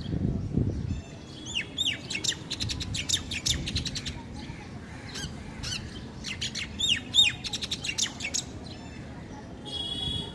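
Small birds chirping: rapid bursts of short, downward-sweeping chirps, with a buzzy held note near the end. A low rumble fills the first second.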